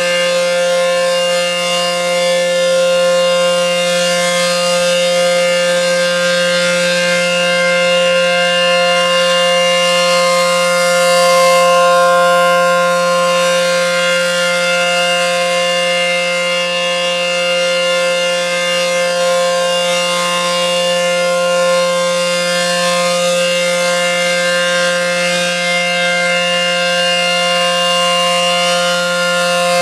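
ACA Penetrator P-10 outdoor warning siren, single-phase and dual-tone, sounding the steady Alert signal: a loud held chord of two tones that neither rises nor falls.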